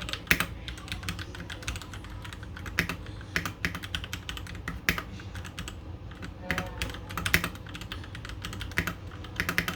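Typing on an Epomaker EP84 mechanical keyboard with stock Gateron Yellow linear switches: a rapid, irregular stream of keystroke clacks, with some strokes louder than the rest.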